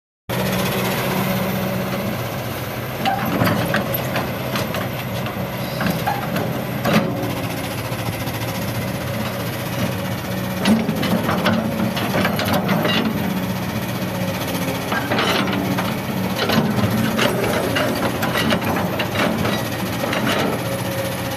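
Kobelco SK200 hydraulic excavator's diesel engine running steadily as it digs rocky soil, with short knocks and scrapes from the bucket and stones every few seconds.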